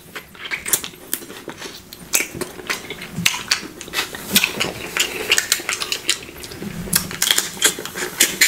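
Close-miked mouth sounds of eating crab legs: sucking and slurping meat out of the shells, with many sharp, irregular clicks and smacks.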